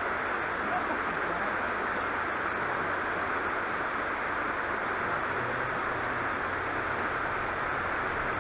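Steady rush of a shallow river running over rocks.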